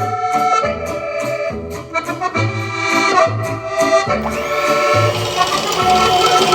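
Background music with held melody notes over a regular bass beat.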